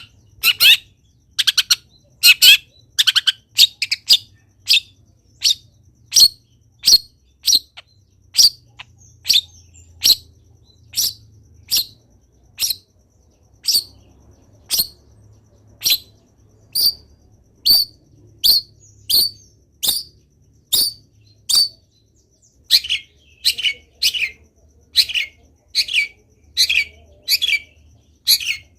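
Long-tailed shrike (cendet) calling in a steady series of short, sharp, piercing notes, about one every 0.8 seconds. Busier, harsher phrases come at the start and again near the end.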